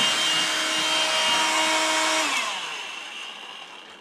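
Electrolux Ergorapido cordless stick vacuum with its brush roller running in a steady whine, then switched off a little after two seconds in, its motor winding down with falling pitch.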